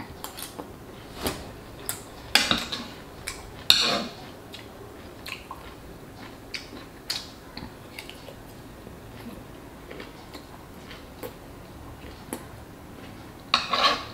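Metal spoon and fork clinking and scraping against a pan as food is scooped up, with eating sounds between. Most strokes are short and light, with a few louder scrapes about two and a half and four seconds in, and again near the end.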